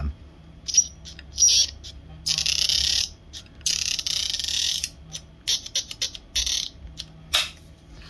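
Telescopic extension tube of a Bosch GL-30 vacuum cleaner being slid in and out: two long, dry scraping strokes of tube sliding over tube, with short squeaky clicks from the length-adjustment catch before them and a run of clicks near the end. The stiff, scraping slide is what the owner thinks needs silicone spray.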